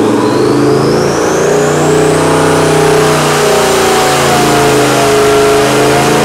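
Twin-turbocharged Ford 428 Windsor-block V8 running loud under load on an engine dyno, its revs climbing and easing as the pull is held. A turbo whistle rises steadily in pitch over the first few seconds.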